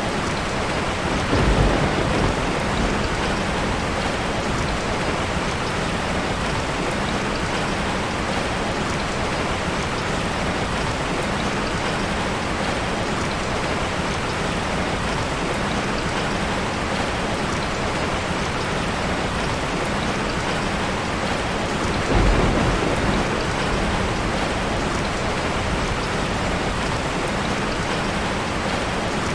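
Steady heavy rain falling, with two short low rumbles of thunder, one about a second and a half in and one about twenty-two seconds in.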